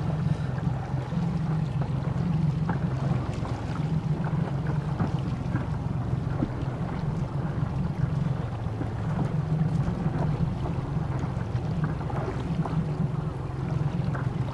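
Steady low hum of a motorboat running slowly on the water, with wind on the microphone and small waves slapping.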